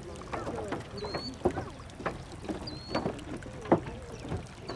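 Outdoor background of distant voices over a low rumble, with scattered knocks. A short, high, upward-flicking chirp repeats three times, about every second and a half to two seconds.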